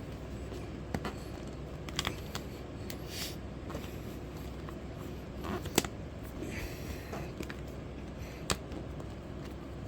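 Scattered light clicks and taps with short scrapes as windshield trim is worked onto the rubber windshield seal by hand; one sharp click a little past halfway is the loudest. A steady low hum lies underneath.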